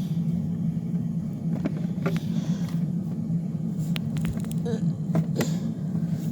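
A steady low hum with a few light clicks and taps of small plastic toy pieces being handled and set down.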